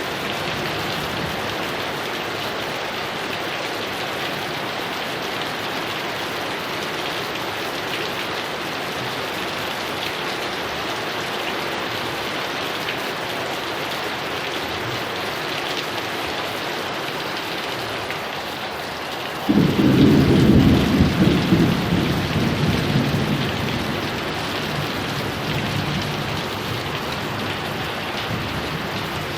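Heavy rain falling with a steady hiss; about two-thirds of the way through a sudden loud thunderclap breaks in and rumbles away over several seconds, while the rain keeps on.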